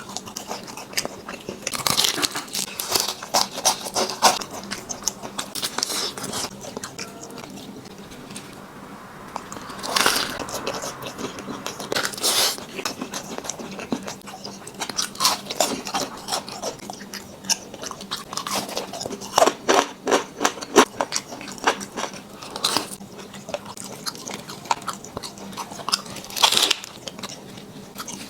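Close-miked mukbang eating: a person biting and chewing, with crunching and wet mouth clicks coming in irregular clusters.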